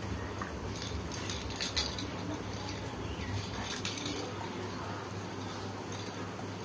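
Plastic baby rattle toy handled by a toddler, giving a few light clicks and rattles, over a steady low hum.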